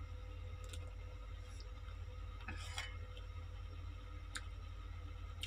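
Someone eating mango: a few faint, short clicks from the bite and the chewing, over a steady low hum.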